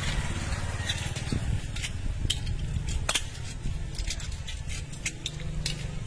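Small scallop shells clicking and clattering as they are handled and opened by hand and with scissors: irregular sharp ticks, several a second, over a low steady rumble.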